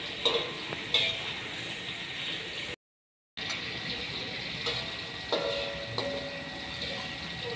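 Chilies frying in oil in an aluminium wok: a steady sizzle, with a metal spatula clinking and scraping against the wok a few times. The sound cuts out for about half a second near the middle.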